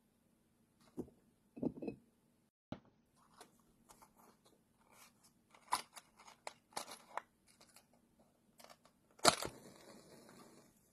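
Small clicks and rustles of something being handled in the fingers, then about nine seconds in a sharp scrape as a match is struck, flaring up with a hiss that lasts about a second and a half.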